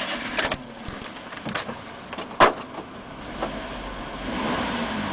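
Honda Acty mini truck's engine running just after starting, with several clicks and knocks in the cab, the loudest a sharp knock about two and a half seconds in. The running sound swells slightly near the end.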